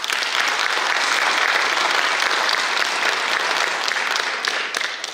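Audience applauding, a dense steady clapping that starts suddenly and dies away near the end.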